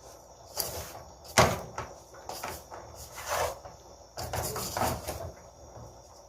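Kitchen clatter: a series of short knocks and scrapes of utensils and cookware, the loudest a sharp knock about a second and a half in.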